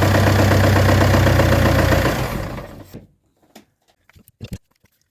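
Mazda 2.2 MZR-CD (R2AA) four-cylinder turbodiesel engine running with a knocking noise, which the uploader traces to a cracked crankshaft; the engine sound dies away about two and a half seconds in, followed by a few faint clicks.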